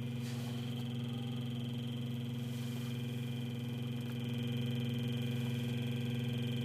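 Replaced BMW car radio putting out a steady electrical buzz through the car's speakers instead of a station: the fault the radio shows on AM and FM.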